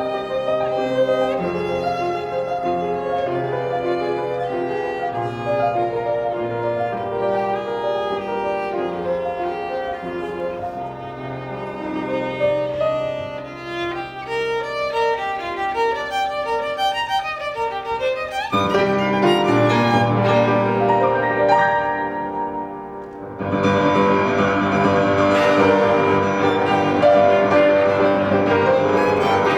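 Live chamber music with the violin leading over lower strings and piano, held bowed notes throughout. About two thirds of the way in the texture changes, and after a brief dip a fuller, louder passage begins.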